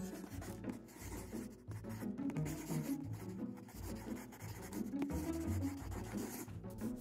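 Scratchy drawing-on-paper sound effect, like a pencil or brush scribbling, over low-pitched background music.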